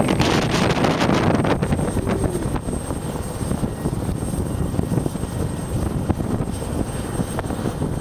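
Helicopter running on the ground with its rotor turning, a steady loud noise.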